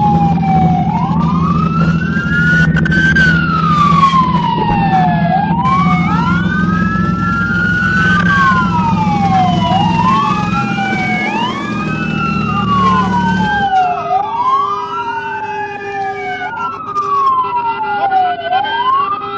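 Police car sirens wailing, each tone sweeping up and down about every two and a half seconds, with two sirens overlapping at different pitches. Underneath, a low steady hum stops abruptly about fourteen seconds in.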